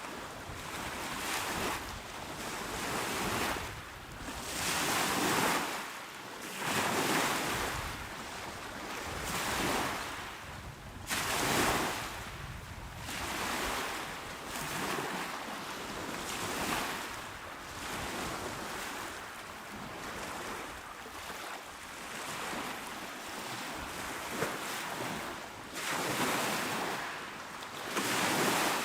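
Small waves washing onto a shore, breaking and rushing in again and again every couple of seconds, with the hiss of surf between them.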